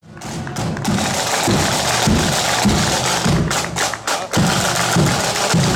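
Marching band playing on parade, with drums striking a quick beat over the band's melody.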